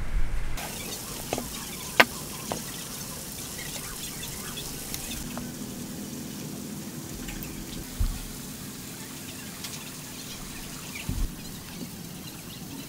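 A steel square and pencil handled against a timber post while marking out: a sharp tap about two seconds in and a couple of soft knocks later, over a steady background hiss.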